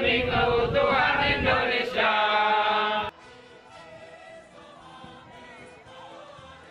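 A large group of men's voices chanting together, loud, cutting off abruptly about three seconds in; after that, quieter choral music.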